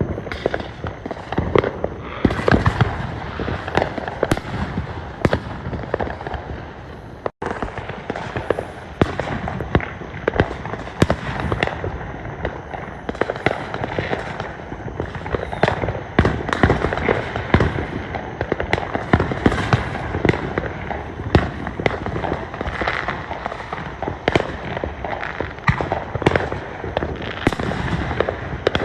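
Fireworks going off in rapid succession: many overlapping bangs over steady crackling, with a brief dropout in the sound about seven seconds in.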